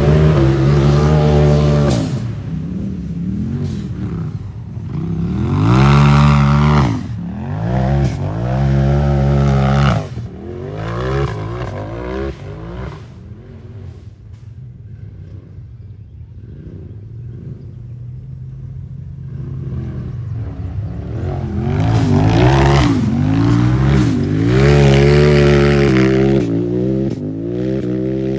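Race UTV engine revving hard and repeatedly, the pitch swooping up and down as the throttle is opened and lifted over and over. It is loud for the first ten seconds, falls away through the middle, then builds again from about twenty seconds in.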